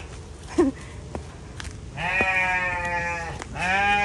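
Sheep bleating: two long, steady bleats, the first about two seconds in and the second starting just before the end. A short, sharp squeak comes about half a second in.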